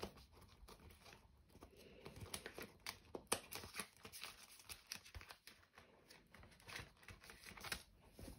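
Faint rustling and crinkling of plastic zip-pocket cash envelopes and a paper envelope being handled in a ring binder, with scattered light clicks, the sharpest about three seconds in.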